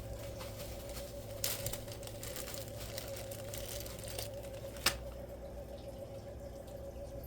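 Small plastic clicks and scrapes from keyboard keycaps being pulled off and fitted, with a short cluster about a second and a half in and one sharp click about five seconds in, over a steady electrical hum.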